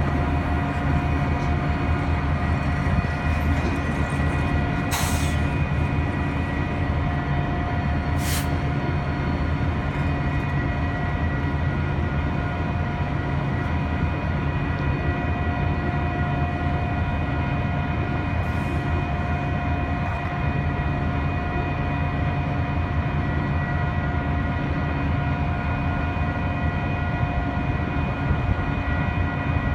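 Canadian National freight train with diesel locomotives moving slowly past, a steady drone of engines and wheels on the rails. Two sharp clanks come about five and eight seconds in.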